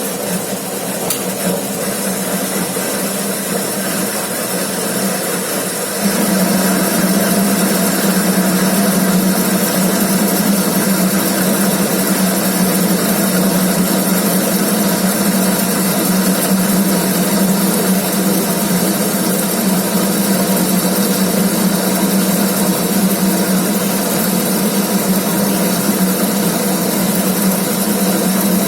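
Homemade belt-driven metal lathe running, heard from a camera sitting on its carriage. About six seconds in it gets louder, with a strong steady hum that holds from then on.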